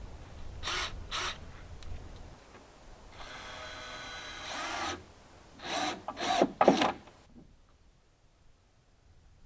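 A power drill running steadily for about two seconds, between short knocks of wood and tools being handled; the loudest clattering knocks come near the end.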